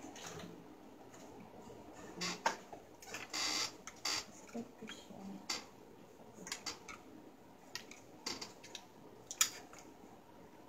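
Irregular clicks, taps and short scraping rustles of ring light and tripod stand parts being handled and fitted together.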